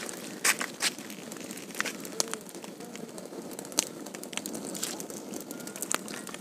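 Wood fire crackling under an iron tawa while cooking oil is poured onto it in a thin stream: scattered sharp pops and crackles over a steady low hiss.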